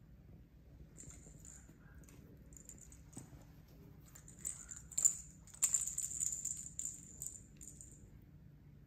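A puppy's small plastic toy ball rattling with a light jingle as it is chewed. About five seconds in come a few sharp clicks, and a busier rattle follows as the ball drops and rolls across the hard floor.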